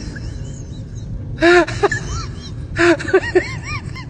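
A voice giving short, high-pitched rising-and-falling cries in two quick clusters, one about a second and a half in and another near three seconds, over a low steady rumble.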